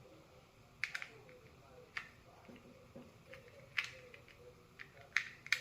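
Scattered small clicks and taps, about half a dozen, sharpest a little before the end: the parts of an Andis clipper being handled during disassembly.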